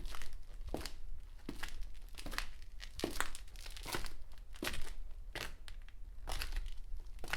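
Hard-heeled shoes walking at a steady pace on dusty concrete, about one step every three-quarters of a second. Each heel strike is sharp, followed by a brief gritty scuff.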